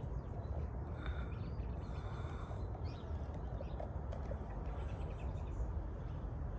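Outdoor ambience: a steady low rumble with a few faint, short bird chirps now and then.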